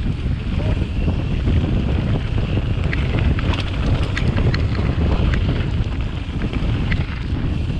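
Wind buffeting the microphone of a mountain bike's point-of-view camera while riding, over the rumble of knobby tyres on a dirt trail, with scattered light clicks and rattles from the bike.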